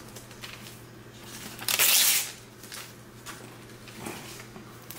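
Gift wrapping and tissue paper rustling and crinkling as a present is unwrapped by hand, with one louder burst of paper noise about two seconds in, lasting about half a second.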